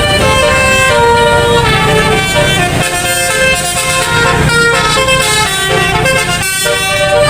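Bus telolet horn, a multi-tone set of horns, playing a quick tune of changing notes over a low rumble.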